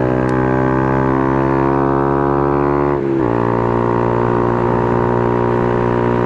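Motorcycle engine running under load while riding. Its pitch rises steadily for about three seconds, dips briefly as it shifts up a gear, then holds steady.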